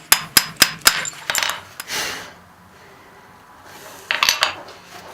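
Hand hammer striking steel on an anvil: a run of quick ringing blows, about four a second, through the first second, then a few lighter clinks. After a short pause, a quick cluster of metal clinks about four seconds in.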